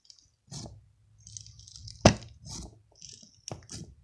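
Crunchy, crispy slime pressed and squished under fingertips, giving off sizzly crackles and irregular pops, the sharpest pop about two seconds in.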